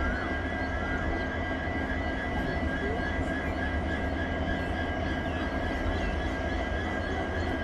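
EMD diesel-electric locomotives (WDG-4 and WDP-4 types) idling together, a steady engine hum with a constant high whine running through it.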